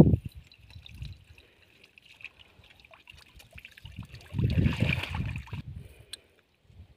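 Water trickling and dripping off a wet cast net just lifted out of a muddy ditch. There are two loud low rumbling bursts of handling noise, one at the very start and one at about four and a half seconds.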